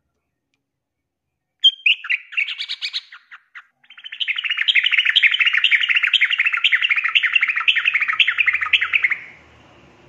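Yellow-vented bulbul singing loudly, which the uploader takes for a female calling a male. About a second and a half in comes a short run of separate chirps, then a long fast chattering phrase of repeated falling notes, about two a second, that stops abruptly near the end.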